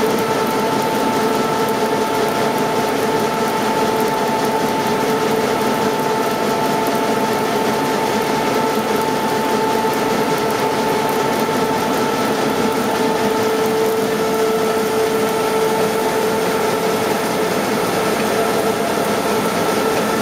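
Printing press running steadily as the web travels over its idler rollers: an even machine noise with a steady hum and a higher whine.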